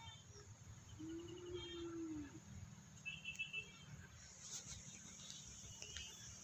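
Quiet rural outdoor ambience: faint bursts of fast, high chirping a few times, a low steady rumble underneath, and one drawn-out low call lasting about a second and a half, starting about a second in.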